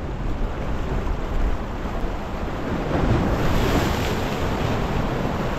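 Waves breaking and washing over jetty boulders, with wind buffeting the microphone as a low rumble. A bigger wash swells up about three seconds in.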